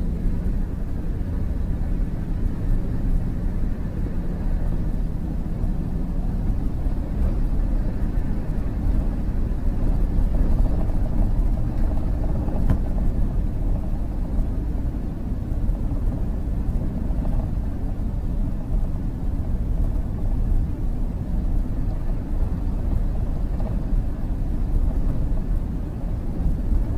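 Steady low rumble of a van driving, engine and road noise without pauses.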